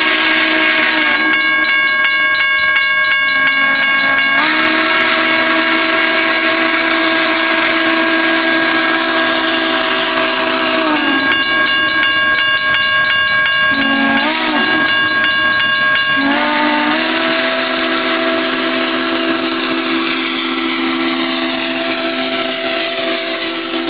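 Southern Pacific 4449, a GS-4 4-8-4 steam locomotive, sounding its chime whistle in long, sustained blasts, with a brief short blast between them and a pitch change at each break. This is the pattern of a grade-crossing whistle signal as the engine approaches the crossing.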